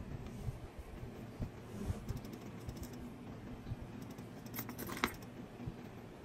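Hands pressing and rubbing a rubber mold disc in its metal ring: soft handling thumps and rubbing, with a short cluster of sharp clicks about four and a half seconds in.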